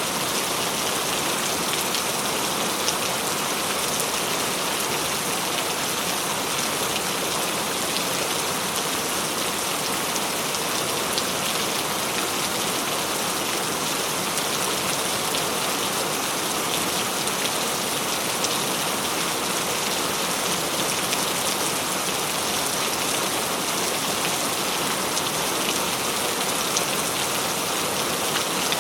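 Steady heavy rainfall, a dense even hiss of drops with scattered sharper individual drop hits.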